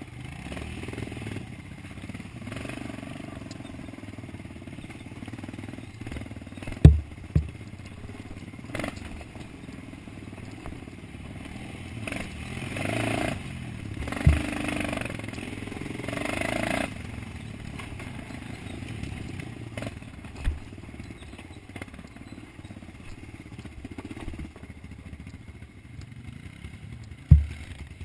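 Dirt bike engine running while riding a rough, muddy trail, revving harder in a few surges about halfway through. Several sharp knocks break in as the bike jolts over bumps.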